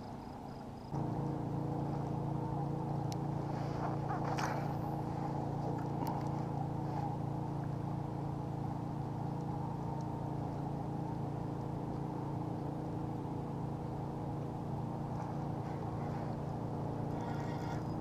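A boat motor running at a steady low hum. It starts abruptly about a second in and holds an even pitch throughout.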